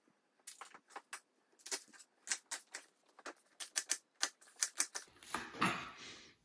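Chef's knife chopping a shallot on a wooden chopping board: quick, irregular taps of the blade striking the board, several a second. Near the end the tapping gives way to a short, soft rush of noise.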